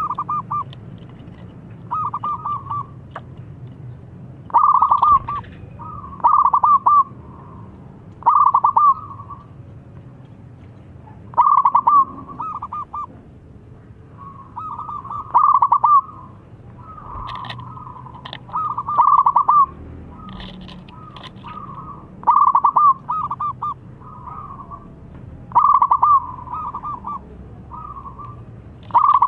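Zebra dove (perkutut) song: short phrases of rapid, rolling coo notes, each about a second long, repeated every two to three seconds.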